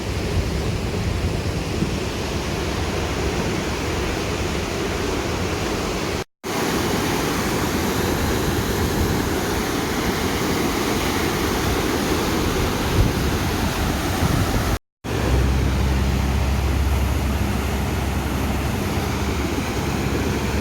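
A swollen, flooding river rushing: a loud, steady wash of water noise, broken twice by short silent cuts between clips. In the last part a heavy low rumble, typical of wind on the microphone, joins the water.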